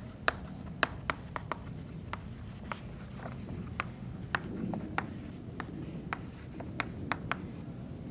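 Chalk writing on a chalkboard: an irregular series of sharp taps and short scratches as letters are written.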